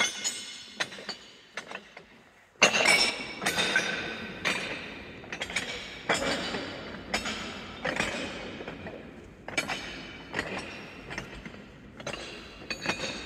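Footsteps on a floor of loose, thick metal face discs, the plates clanking and clinking against one another with each step. Light clinking at first, then from about two and a half seconds in, louder jangling crunches about once a second, each ringing on briefly.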